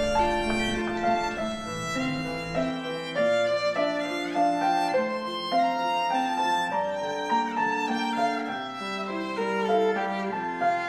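Background music with a violin playing a melody.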